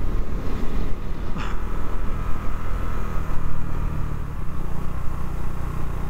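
Husqvarna Svartpilen 401's single-cylinder engine, fitted with a Leo Vince LV-10 exhaust, running steadily as the motorcycle is ridden along.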